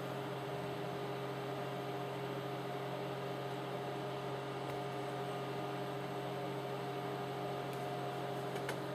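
Steady electrical hum: a low, unchanging buzz with a few faint higher tones over a light hiss.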